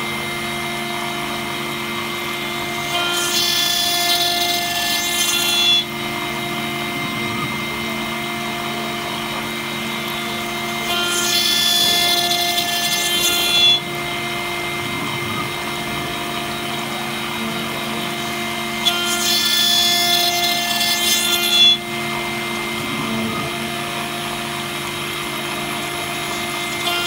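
CNC router spindle running steadily with a constant whine while a small cutter machines holes in a brass plate. Three times, about eight seconds apart, a cut of about three seconds adds a louder, high ringing cutting noise that stops abruptly with a brief peak.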